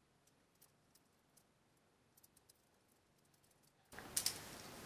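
Near silence with a few faint clicks. About four seconds in, a steady hiss comes up and one sharper click follows, from small hardware being handled on a fiberglass quadcopter frame.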